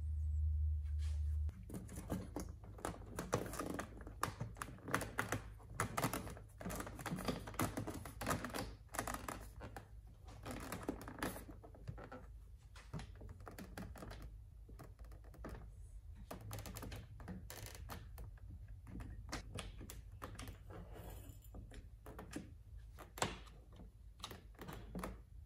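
Irregular clicks and knocks as hard plastic dash parts are handled and pressed into place, and one-handed bar clamps are ratcheted tight, dense at first and sparser later with one sharp click near the end. A low steady hum stops about a second and a half in.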